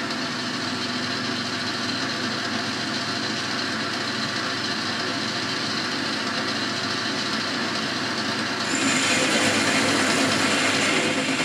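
Boxford lathe running with the chuck spinning the blank; about nine seconds in, the sound steps up louder with a high hiss as the tool takes a light cut of a few thou.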